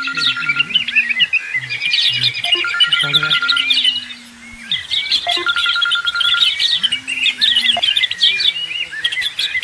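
Dense chorus of small birds chirping and trilling, with a low held tone that rises at its start and drops off at its end, coming back about every three seconds.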